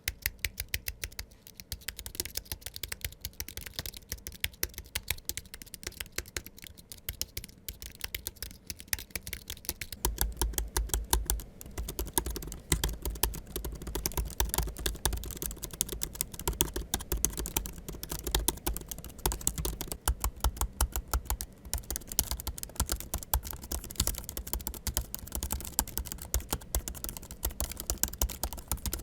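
Fast, continuous typing on low-profile Apple scissor-switch keyboards: first a standalone Apple Magic Keyboard, then from about a third of the way in the built-in keyboard of a 2021 MacBook Pro 14", whose keystrokes carry a deeper thud, and for the last third a 2019 MacBook Pro 16"'s built-in keyboard.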